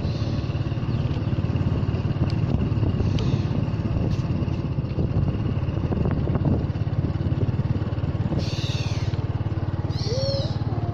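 A small engine running steadily with a low hum, with two short high chirps about eight and ten seconds in.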